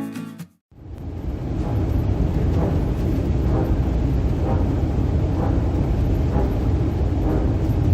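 A guitar music intro ends about half a second in, then a steady low rumble of wind on the microphone begins, with faint regular footsteps roughly once a second.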